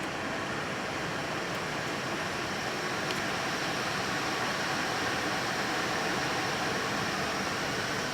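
Airbus A320-family jet engines spooling up as takeoff thrust is applied, heard inside the flight deck as a steady rushing hiss that grows slightly louder.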